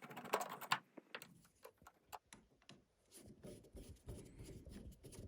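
Faint irregular clicks and short scrapes of a screwdriver and small screws being worked into a light-switch cover plate.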